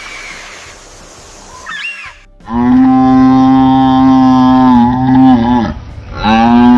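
Cattle mooing: two long, loud, steady moos, the first about three seconds long and falling away at its end, the second starting near the end. Before them there are a couple of seconds of faint background.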